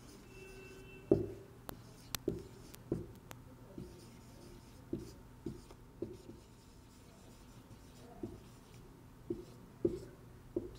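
Marker pen writing on a whiteboard: a string of short, irregularly spaced strokes and taps as a word is written out.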